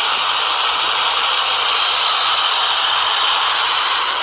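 Chainsaw running at full throttle, cutting through a tree trunk: a loud, steady noise with no let-up.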